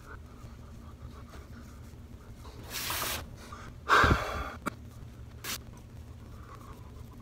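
A man breathing out sharply through his nose a couple of times, about three and four seconds in, over a low steady room hum, with a brief click a little later.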